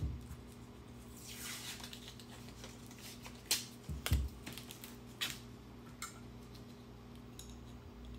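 Scattered light clicks and taps of small metal hand tools being handled, over a faint steady hum.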